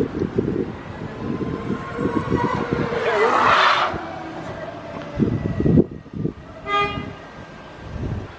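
Electric motorbike riding off down the street, its motor whining steadily, with a loud rush of noise as it passes about three seconds in. A brief high toot sounds near the end.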